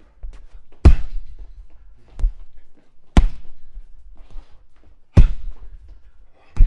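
Punches landing on a punching bag: dull thudding hits, one every second or two, about five in all, the second lighter than the rest.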